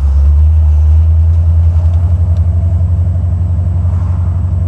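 Buick 455 Stage-1 V8 running in the Regal, heard from inside the cabin as a loud, deep, steady drone with a fast even pulse.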